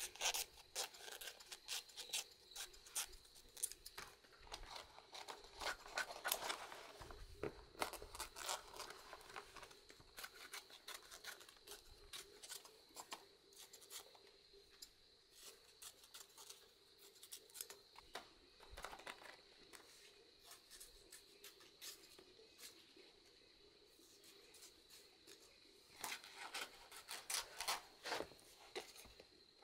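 Scissors snipping through banana leaf as it is trimmed around sticky rice cakes: a run of quick, sharp snips that thin out past the middle and come thick again near the end.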